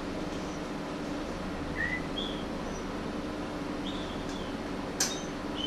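Steady low hum of a small room, with a few short high chirps around the middle and one sharp click about five seconds in.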